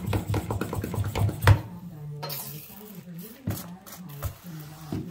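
Hand-pump pressure sprayer being pressurised with quick strokes of its pump handle, about five a second, then a short hiss of spray about two seconds in. A few scattered clicks follow.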